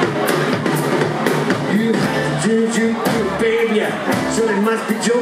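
Live rockabilly band playing: electric and acoustic guitars, upright double bass and drum kit, with a steady driving beat and a guitar melody coming in about two seconds in.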